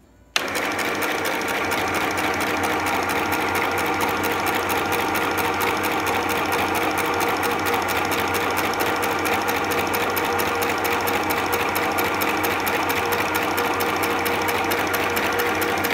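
Sew Simple FHSM 505 mini sewing machine sewing steadily at its low 'L' speed, a fast, even run of needle strokes, starting about half a second in and stopping abruptly at the end.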